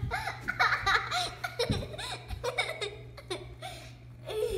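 A small child laughing in a run of short, high-pitched giggles, thickest in the first second and a half and thinning out after, over a steady low hum.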